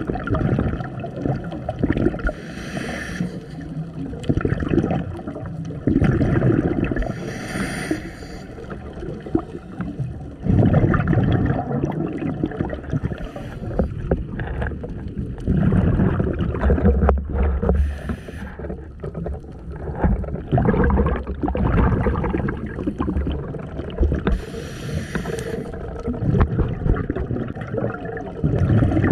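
Scuba diver breathing through a regulator, heard underwater: low bubbling surges of exhaled bubbles, with a short high hiss coming back about every five seconds.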